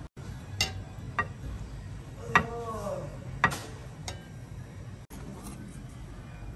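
A handful of sharp, separate clicks and taps from a steel knife and a ceramic plate being handled while fish slices are arranged; the loudest, about two seconds in, rings briefly.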